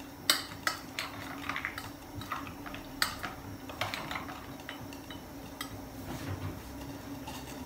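A metal spoon clinking and scraping against a steel bowl as chopped vegetables are mixed, with several sharp clinks mostly in the first half. A steady low hum runs underneath.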